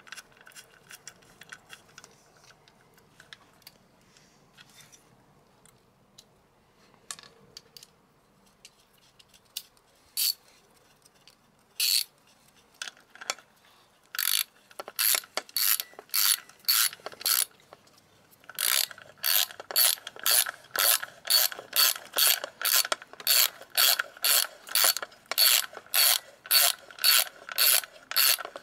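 Hand socket ratchet tightening a 12 mm lower-unit bolt on an outboard: a few scattered clicks and taps at first, then from about halfway through a steady run of ratchet strokes, roughly two a second, each a quick burst of pawl clicks.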